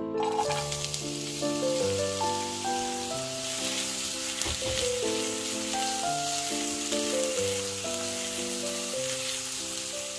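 Diced onions frying in hot vegetable oil in a nonstick pan, a steady sizzle that starts as they go into the oil, stirred with a spatula. Soft piano music plays underneath.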